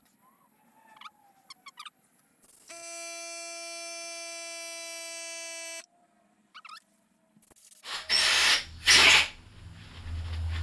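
A small power drill whirs at a steady pitch for about three seconds. Near the end come two short, loud blasts of aerosol electrical cleaner, sprayed to clean out the engine's oil holes.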